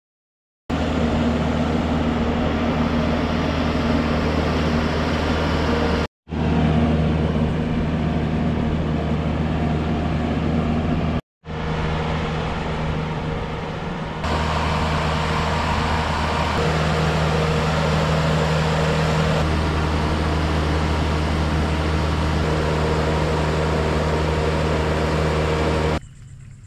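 An engine running steadily with a deep, even hum, heard in several segments that start and stop abruptly about 6, 11, 14 and 26 seconds in.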